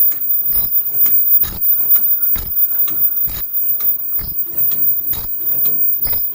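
Automatic KF94 fish-type face mask production line running, its mechanisms clacking in a steady rhythm: a heavier knock about once a second with lighter clicks between.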